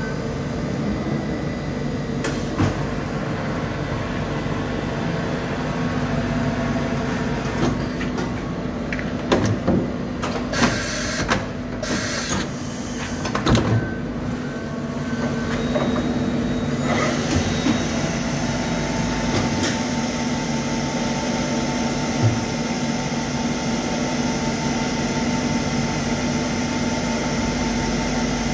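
Steady mechanical hum of powered workshop machinery, holding several steady tones, with a cluster of short knocks and clicks around the middle and a new steady tone joining about two-thirds of the way in.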